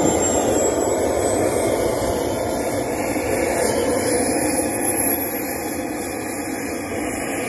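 Kingtech K-100 model jet turbine running on the ground, a steady rushing noise with a thin high whine that climbs slowly in pitch.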